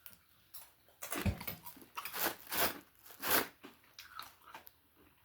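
A person chewing a crunchy mouthful of Beer Nuts habanero bar mix, peanuts and corn sticks: a run of loud, irregular crunches starting about a second in and lasting a couple of seconds, then fainter chewing.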